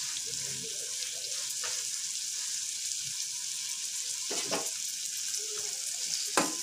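Goat brain masala frying in oil in a steel pan, a steady high sizzle, with a few knocks and scrapes of a slotted steel spoon against the pan in the last couple of seconds as it is stirred.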